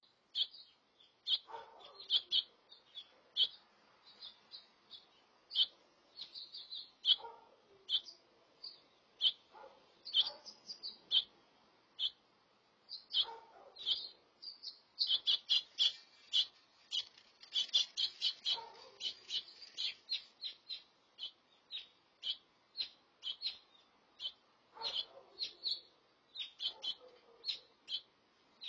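House finches chirping: a rapid, uneven run of short, high calls, thickest around the middle, with a lower, rougher call every few seconds.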